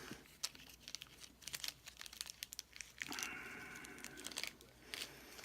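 Small lock pins and tools clicking and ticking against a plastic rekeying pin kit as pins are picked out, with a scraping rustle about three seconds in.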